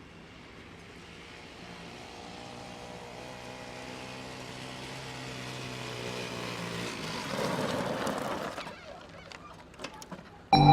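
An engine running with a steady hum, growing gradually louder to a peak about seven to eight and a half seconds in, then dying away, followed by a few sharp clicks. Music starts abruptly right at the end.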